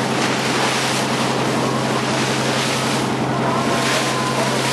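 Fishing boat under way: its engine running with a steady hum under the rush of wind and water spray against the hull, wind buffeting the microphone.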